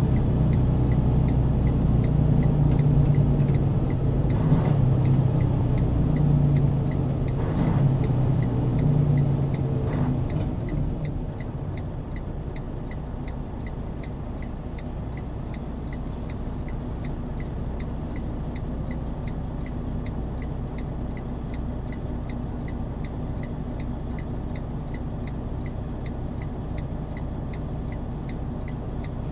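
Truck's diesel engine heard from inside the cab, running under way as the truck slows for the first ten seconds, then dropping about eleven seconds in to a steady idle while stopped. A faint, evenly spaced ticking runs under it.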